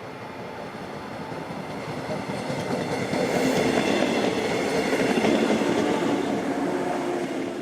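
A train running on the rails, growing louder over the first few seconds, holding, then easing off near the end.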